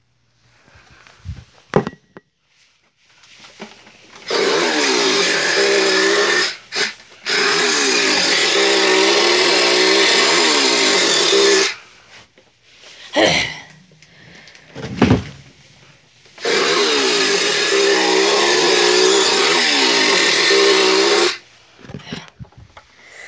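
A chainsaw-like power-tool motor, run in three long bursts of about two, four and five seconds, its pitch wavering up and down. Short knocks and handling noises fall between the bursts.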